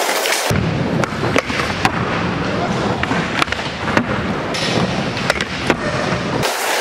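Skateboard wheels rolling on smooth concrete with a steady low rumble, broken by a scatter of sharp clacks and knocks from the board.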